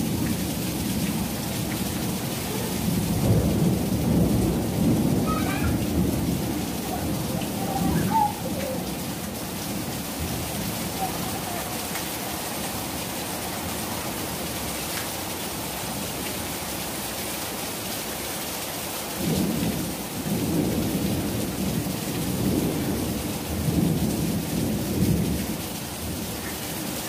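Heavy rain pouring onto a paved driveway and tiled porch, a steady hiss, with low rumbles swelling up through the first third and again near the end.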